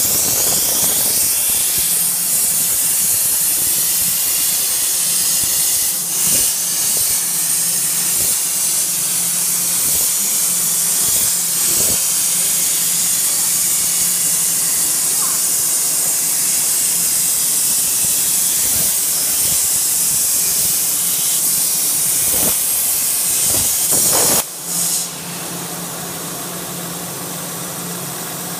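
CNC plasma cutting torch cutting steel plate: a loud, steady hiss of the plasma arc and its air jet, which cuts off abruptly about 24 seconds in as the cut ends. A short second burst follows, then a lower steady hum.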